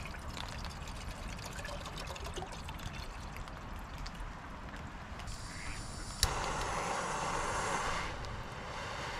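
Water poured from a plastic bottle into a small pot, trickling and splashing. About six seconds in comes a sharp click, then a louder hiss of gas from a backpacking canister stove for about two seconds.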